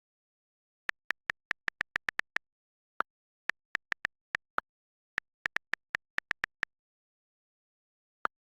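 Short, sharp clicks over dead silence, coming in quick irregular runs of several a second, with a gap of about a second and a half before one last click near the end.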